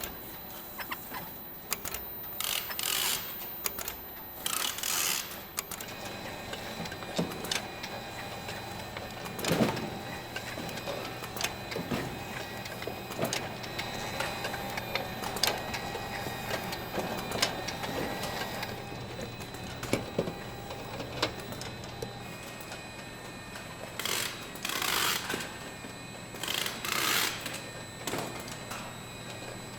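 Brewery machinery running with a steady hum and whine, scattered clicks and knocks, and four short bursts of hissing, two near the start and two near the end.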